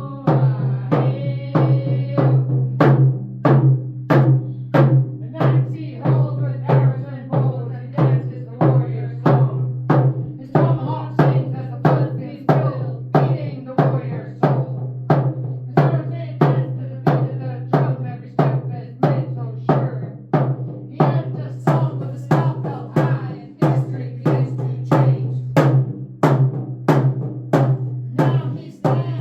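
Hand drums beaten together in a steady, even beat, about two strokes a second.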